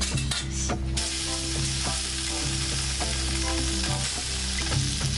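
Sauce-glazed eel sizzling as it grills on a wire rack for kabayaki: a steady sizzle that sets in about a second in.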